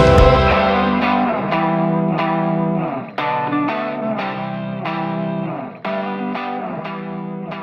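Background music: an electric guitar with effects picking a repeating pattern of notes. The deep bass drops out about half a second in, and the guitar slowly fades.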